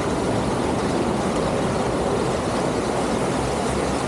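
Waterfall pouring into a pool, a steady loud rush of falling water.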